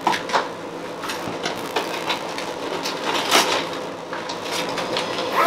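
A plastic Hefty zipper storage bag is pulled from its box and opened out by hand, the thin plastic crinkling and rustling with irregular sharp crackles.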